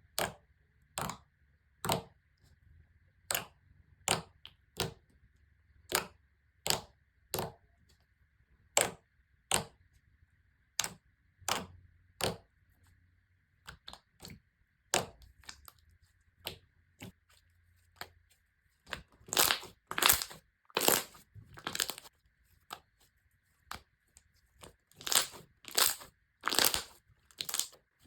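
Slime being pressed and squeezed by hand, giving crisp pops and crackles about once a second, then denser runs of crunchy crackling in the last third.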